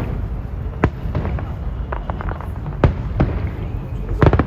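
Aerial fireworks shells bursting: sharp bangs about a second in, twice near three seconds and a quick cluster near the end, over a continuous low rumble.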